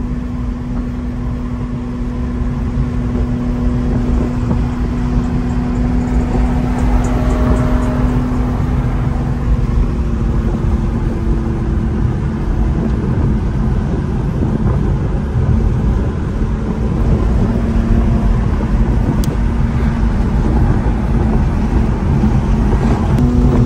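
A car driving at a steady speed: a constant engine hum over a heavy low rumble of road and wind noise.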